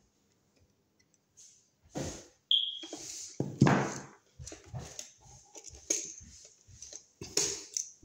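Scattered clicks, knocks and rustles of hand work: needle-nose pliers bending solid copper wire and hooking it onto a wall receptacle's terminal screw. A brief high squeak comes about two and a half seconds in, and the loudest knock comes just before four seconds.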